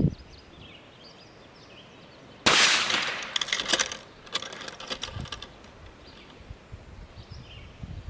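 .223 rifle round striking a Chubb Battleship steel padlock hung on chains: a sharp crack about two and a half seconds in, followed by a couple of seconds of metallic rattling and clinking as the lock and chains swing.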